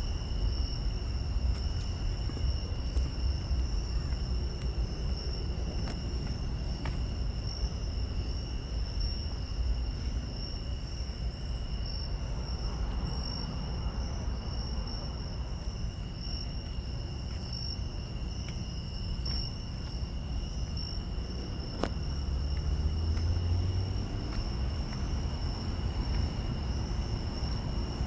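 Night insects trilling steadily and high-pitched over a constant low rumble of city traffic. A vehicle passes about 22 seconds in.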